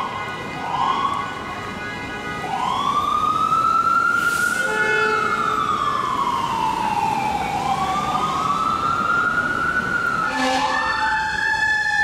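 Ambulance siren on a city street. Two short rising whoops open it, then it wails in long sweeps: a rise that levels off, a slow fall and a rise again. Near the end another siren winds up over a steady lower tone.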